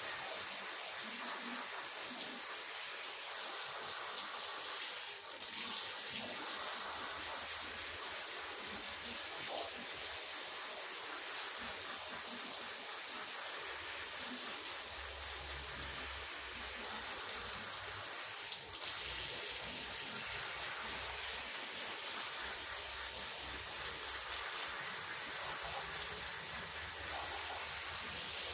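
Rotary floor polisher scrubbing a wet carpet with its brush: a steady wet hissing swish, dipping briefly twice.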